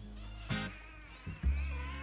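A cat meows, with one clear call about half a second in, over steady background music.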